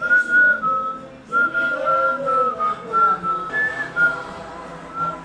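A whistled melody over a background music track, the tune stepping between a few high notes in short phrases above a soft accompaniment.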